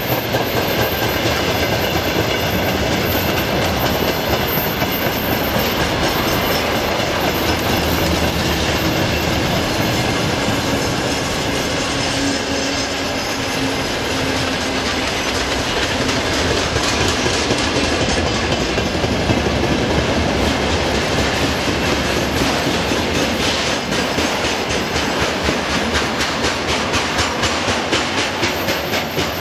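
Freight wagons rolling past at speed: a steady rumble of steel wheels on the rails with a rhythmic clickety-clack.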